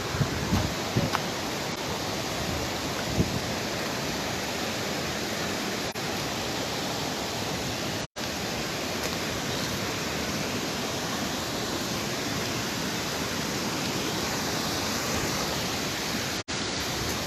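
Steady rushing of water cascading down a waterfall, cut by a brief silent gap about eight seconds in and another near the end.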